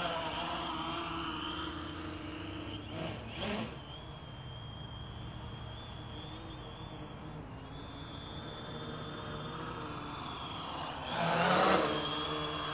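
Quadcopter's electric motors and propellers buzzing in flight, the pitch shifting as the throttle changes. It fades as the drone flies off, then swells to its loudest about eleven seconds in as it sweeps back close by.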